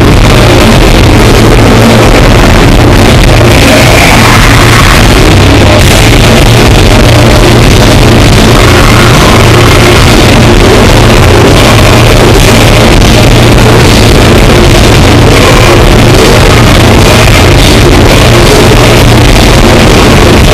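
Live rock band playing electric guitars and drums at full volume, recorded so loud that the sound is overloaded and clipped throughout.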